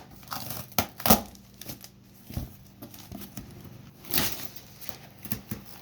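Shipping box being unpacked by hand: packing material crinkling, rustling and tearing, with a few sharp knocks and scrapes.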